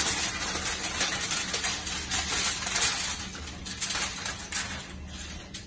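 Aluminium foil crinkling and crackling as it is folded around a salmon fillet. The crackle is dense and thins out near the end.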